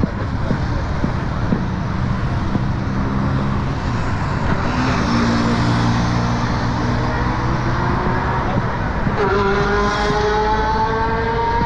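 Busy road traffic with vehicle engines running and passing close by. About nine seconds in, one engine rises steadily in pitch as the vehicle accelerates away.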